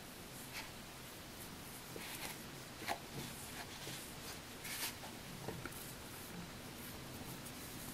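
Faint rustling and scratching of ribbon yarn being pulled through stitches with a metal crochet hook, with a few short soft ticks spread irregularly.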